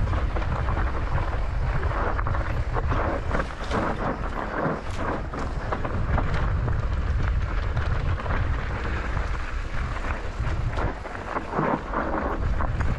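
Mountain bike descending a steep, rutted stony trail: a constant low rumble of wind and riding on the microphone, with a rapid clatter of tyres and bike over loose stones.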